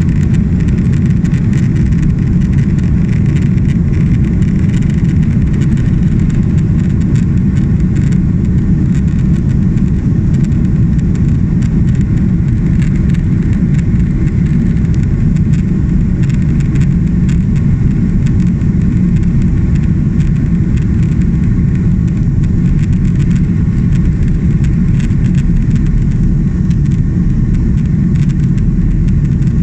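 Cabin noise of a jet airliner rolling on the ground with its engines running: a steady low rumble of engines and wheels.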